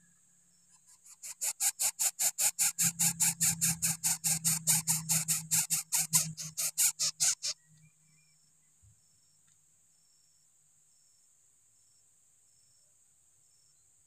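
Coucal nestlings begging while being fed: a rapid, rhythmic pulsed hissing, about five or six pulses a second, lasting some six seconds and then stopping abruptly.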